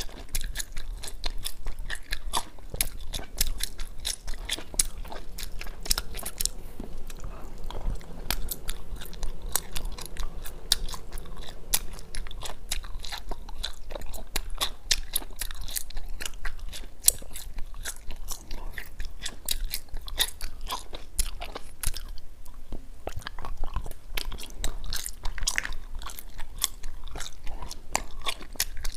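Wax bottle candy being bitten and chewed close to a clip-on microphone: a steady stream of sharp clicks and crunches as the wax shell breaks between the teeth.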